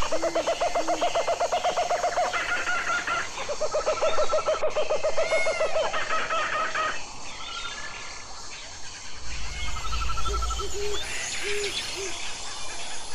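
Forest birds calling: rapid trilling calls run for two or three seconds at a time in the first half, with short, repeated hooting notes near the start and again near the end, and thin chirps over them.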